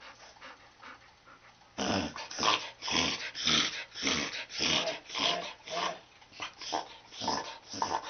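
Corgi having a reverse-sneeze attack: a rapid run of loud, forceful snorting inhalations, about two a second. It starts about two seconds in and weakens near the end.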